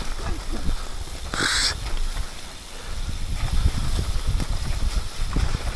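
E-mountain bike riding down a wet, leaf-covered trail: tyres rolling over leaves and mud, with the bike knocking and rattling over bumps. A short hiss comes about one and a half seconds in.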